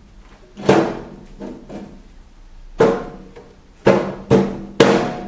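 Irregular sharp knocks and clanks with a short ring, about five of them, as a vermiculite flame baffle is worked into place inside a steel stove's firebox.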